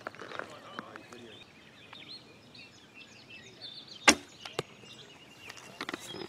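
A traditional wooden bow is shot: a sharp crack of the string about four seconds in, the loudest sound, and half a second later a smaller knock as the arrow strikes the foam 3D deer target. Birds chirp throughout.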